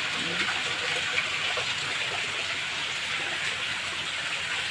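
Steady rush of running, splashing water in the koi tanks.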